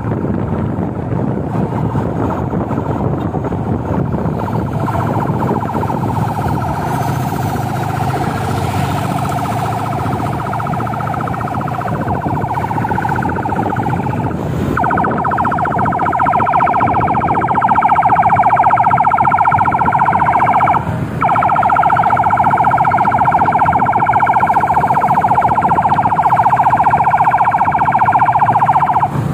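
Police escort car's siren sounding a steady tone over traffic and engine noise, growing louder about halfway through and cutting out briefly three times.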